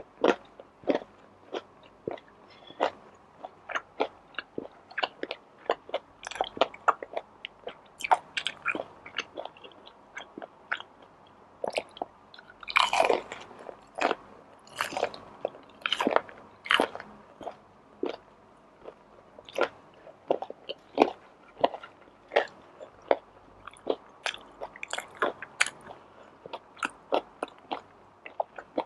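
Close-miked eating sounds: steady chewing with many small sharp mouth clicks and crunches, and louder crunching bites about halfway through.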